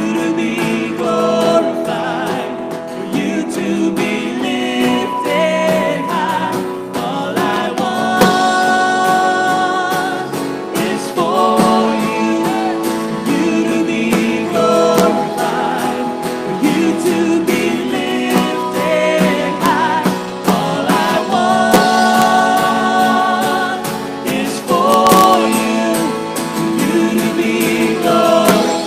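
Live worship band performing a song: male and female singers holding sustained sung lines over strummed acoustic guitar.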